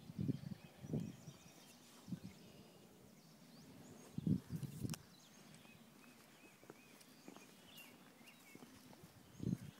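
Low, irregular thumps and rumbles of handling noise from a handheld camera being swung around, heaviest about halfway through, with small birds chirping faintly in the background.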